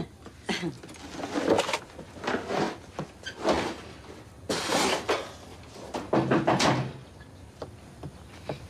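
A string of knocks, bangs and short rustling rushes, like doors and cupboards being opened and shut in a hurry.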